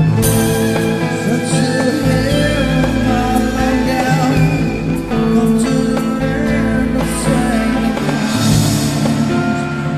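Instrumental passage of a rock song with guitar, sustained notes and some bending lines over a steady bass, no lyrics sung.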